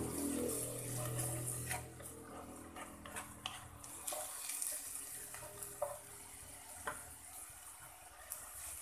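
Minced chicken breast sizzling in a nonstick wok while a wooden spatula stirs and scrapes through it, with scattered sharp taps of the spatula on the pan.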